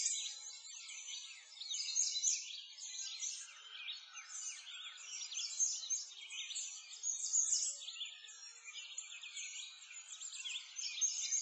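A dense chorus of many songbirds chirping and trilling, with quick overlapping high calls that never let up.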